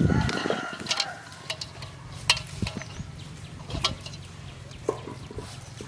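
Hands plucking feathers from whole chickens in a metal basin: rustling and scraping, with scattered sharp clicks and knocks against the basin.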